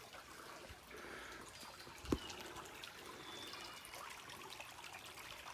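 Faint stream water trickling over rock, with a single low thump about two seconds in.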